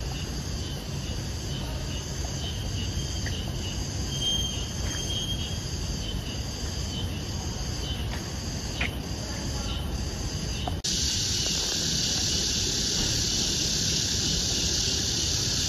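Insects trilling steadily at several high pitches over a low background rumble. About two-thirds of the way through, the sound cuts abruptly to a louder, hissier insect chorus.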